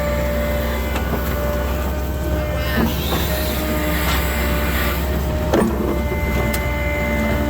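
Case 580 Super N backhoe's diesel engine running steadily under a thin, steady whine, with two short knocks, near three seconds in and again about five and a half seconds in.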